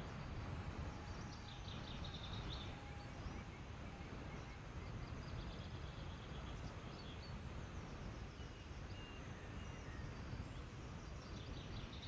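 Steady low rumble of wind and road noise as the view travels along the road, with small birds chirping in short trills about two seconds in and again near the end, and a few faint whistled notes in between.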